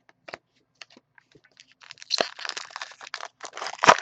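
Scattered light clicks, then from about two seconds in a dense crinkling and rustling of card packaging as trading cards are handled, loudest near the end.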